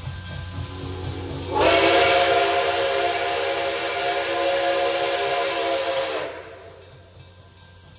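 Steam whistle of Nickel Plate Road No. 765, a 2-8-4 Berkshire steam locomotive, blowing one long blast of several tones at once. The blast swells in about a second in, is full from about a second and a half, and dies away about six seconds in, over a low rumble.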